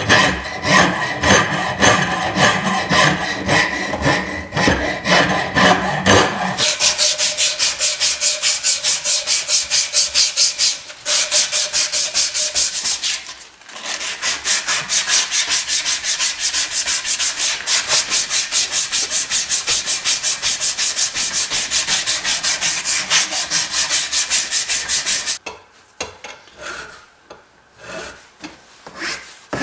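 Steel blade being abraded by hand in rapid, even back-and-forth strokes, about three or four a second. The strokes turn brighter and hissier about six seconds in, pause briefly near the middle, and stop a few seconds before the end.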